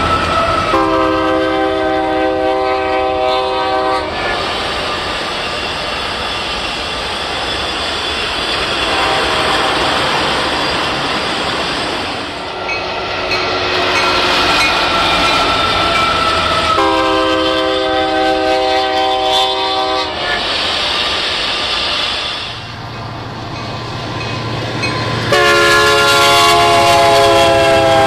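Union Pacific diesel freight locomotive's multi-chime air horn blowing three long blasts of about three seconds each, several notes sounding together. Between the blasts the passing freight train rumbles, and the last blast slides slightly lower in pitch as the locomotive goes by.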